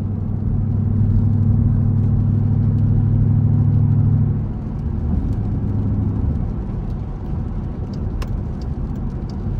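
SRT Jeep's V8 engine with road noise, a steady low drone while cruising that drops off about four and a half seconds in as the car eases off and slows.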